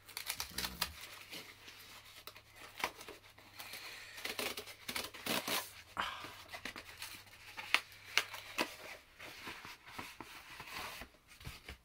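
A cardboard mailer being torn and pulled open by hand: irregular tearing, scraping and crinkling with sharp knocks and snaps of the cardboard.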